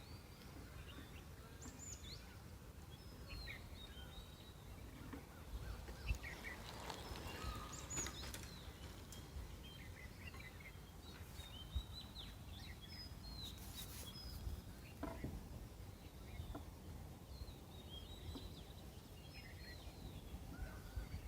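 Forest birds chirping and calling, many short chirps and brief whistles from several birds, over a steady low rumble of background noise. A few sharp clicks stand out, about 6, 12 and 14 seconds in.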